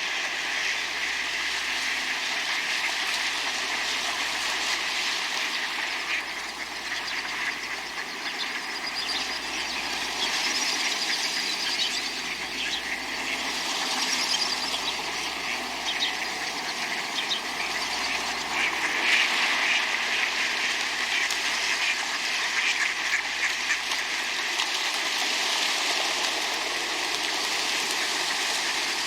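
A flock of ducks quacking while splashing in water: a steady rush of splashing with quacks scattered throughout, busiest about two-thirds of the way through.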